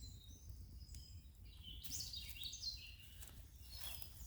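A songbird singing in the woods: a short, quick run of chirps and whistling glides about a second and a half in, over a faint, steady low rumble.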